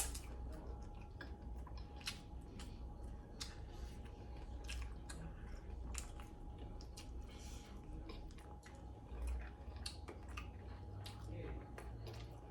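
A person chewing and eating chicken wings close to the microphone: irregular sharp wet clicks and crunches of biting and chewing. A faint steady hum runs underneath.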